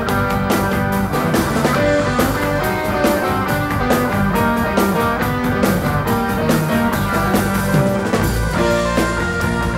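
Instrumental passage of a progressive rock song: keyboards and an electric guitar, a Fender Stratocaster, playing over a drum kit, with held chords and steady drum hits.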